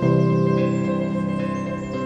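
Background music: a slow, calm new-age piece with sustained chords, a new chord entering at the start.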